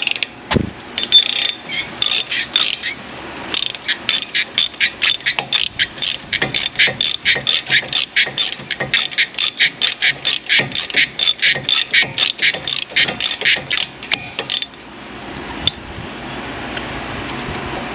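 Hand ratchet clicking in quick, even back-strokes as it turns a socket on a brake caliper bolt of an Infiniti G37. The clicking stops about fifteen seconds in, leaving a steady rushing background noise.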